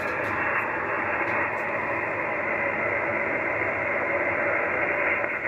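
Steady hiss of band noise from an Icom IC-7610 HF transceiver receiving single-sideband on the 15-metre band, its top end cut off by the narrow SSB filter. No station's voice comes through.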